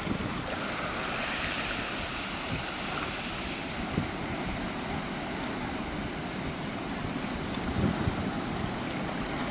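Ocean waves breaking and washing on a rocky shore, a steady rush of surf that swells about a second in.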